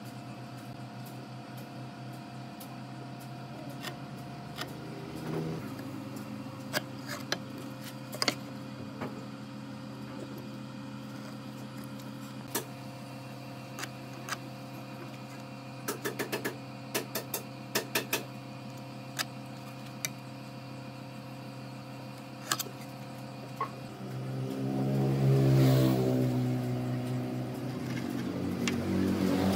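A workshop machine hums steadily, with scattered sharp knocks and taps. About 24 seconds in, a louder motor sound swells up, eases off, and rises again near the end.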